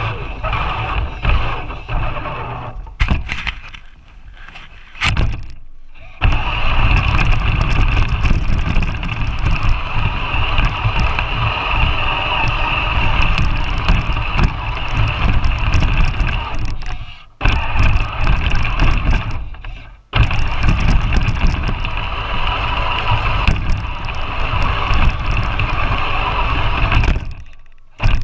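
Battery-powered RC 4x4 truck's electric motor and gears whining as it drives through snow, heard from a camera riding on the truck, with heavy rumbling as the chassis jolts over the snow. The sound drops out briefly a few times, longest about four seconds in.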